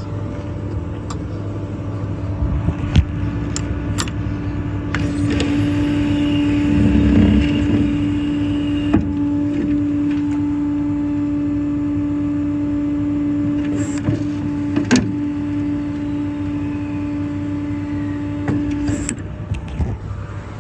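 Hydraulic outriggers on a crane service truck being run from their control levers. The idling MaxxForce diesel drives a hydraulic pump, which gives a steady whine under load from about five seconds in until shortly before the end. A few sharp clicks are heard along the way.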